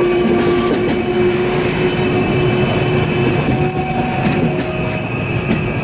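PKP Intercity passenger coaches rolling past at a platform, their wheels squealing in several steady high tones over a continuous rumble from the running gear. The last coach goes by about four seconds in.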